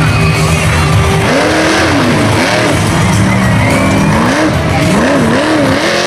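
Monster truck engine revving up and down in repeated blips, the last few quick, over loud music from the arena speakers.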